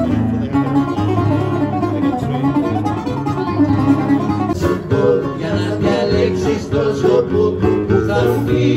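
Live acoustic guitar and bouzouki playing together, a steady run of plucked notes over strummed chords.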